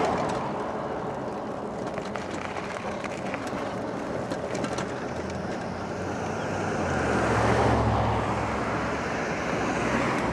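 Wind rushing over the microphone and road noise from a moving e-bike, with scattered small ticks. About seven seconds in, a vehicle's low engine hum swells and fades as it passes.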